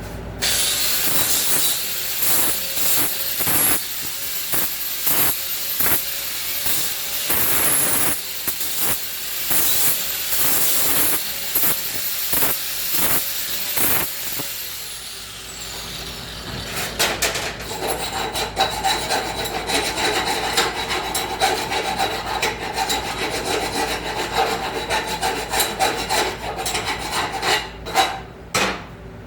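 A small power tool deburring the freshly cut ends of steel tubing: a high whine with repeated rasping passes over the metal edges. The tool winds down about fourteen seconds in, and more scraping on the steel follows.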